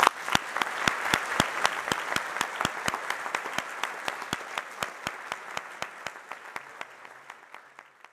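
Audience applauding, loud at first and then gradually thinning out and fading.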